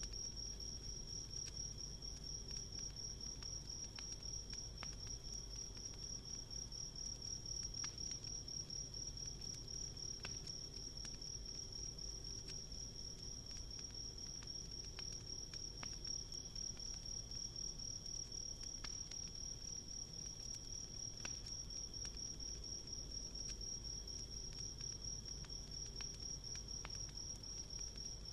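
Crickets trilling, a steady high pulsing note with a fainter lower one beneath it. Sparse small crackles and pops of a wood campfire sound over a soft low rumble.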